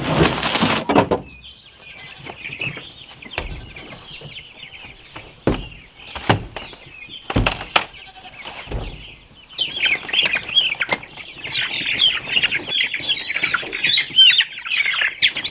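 Plastic poultry crates clattering as they are set down, followed by a few knocks and thumps, over the steady peeping of a brood of meat-bird chicks; the peeping gets much louder and denser about ten seconds in.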